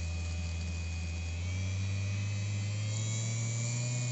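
Small 12-volt 555-size DC motor running on an LM317-based speed controller, a steady hum with a thin high whine. The pitch steps up about a second and a half in and rises again near the end as the motor speeds up.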